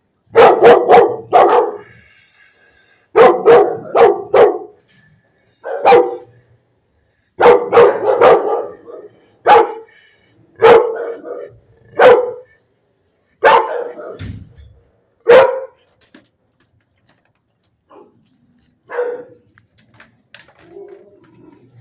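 Pit-bull-type dog barking loudly at close range in a shelter kennel. The barks come in quick runs of three or four at first, then singly every second or two, and thin out to a few quieter barks near the end.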